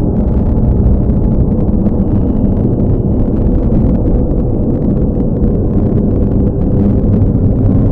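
A steady, deep rumble with a faint low drone running through it.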